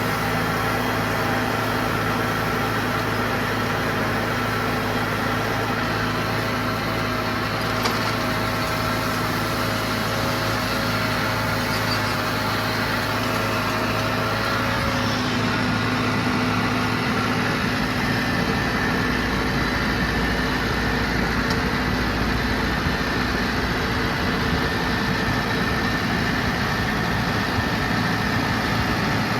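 Diesel farm tractor engine running steadily, with a small shift in its pitch about halfway through.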